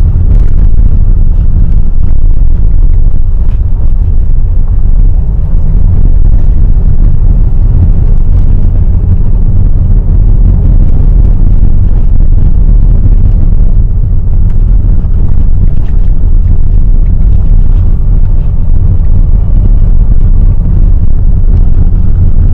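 Car driving slowly on a dirt track, heard from inside the cabin: a steady, loud low rumble of engine and tyres.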